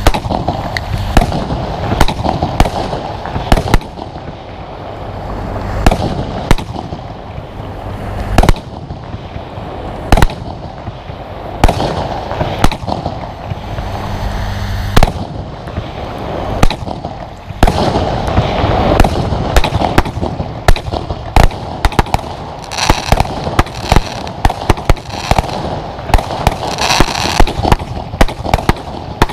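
Compound fireworks cake (Verbundfeuerwerk) firing continuously: a steady rush of launches under loud sharp bangs, about one or two a second at first. In the last third the bangs come much faster, with bursts of high crackle.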